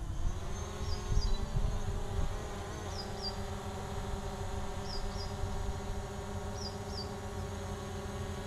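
DJI Mavic Pro quadcopter's propellers buzzing in flight just after takeoff, the pitch wavering over the first two seconds and then holding steady. A bird gives a short two-note chirp every second or two.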